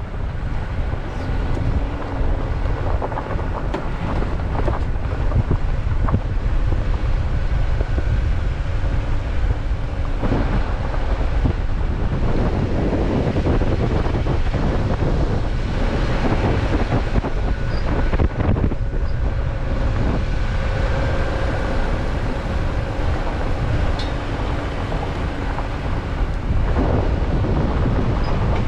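Off-road vehicle driving along a gravel dirt trail, heard from a camera on its hood: steady wind noise on the microphone over the low hum of the engine and the rumble of the tyres. The engine pitch rises and falls slightly as the vehicle moves.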